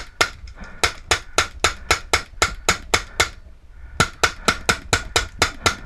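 Paintball marker fired in rapid strings of sharp pops, about six shots a second, with one short pause about three seconds in.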